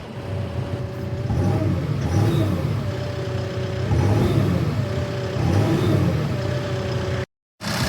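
Case 580N backhoe's diesel engine running and working under load, its pitch and load rising and falling in cycles about every two seconds, with a whine that comes and goes with them. The sound drops out briefly near the end, then the engine runs steadily.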